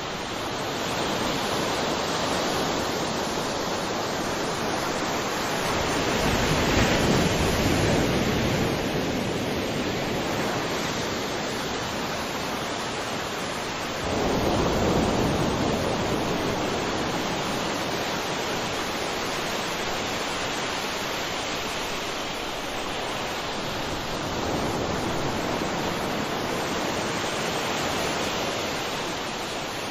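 Sea waves breaking as surf: a continuous rushing wash that swells with each incoming wave, the biggest surges arriving about six and fourteen seconds in.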